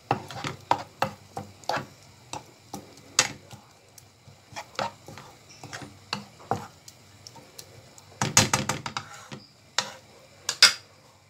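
Wooden spoon stirring a thick tomato and onion sauce in a nonstick frying pan, knocking and scraping against the pan in irregular clacks, with a quick flurry of knocks about eight seconds in and two sharp taps near the end.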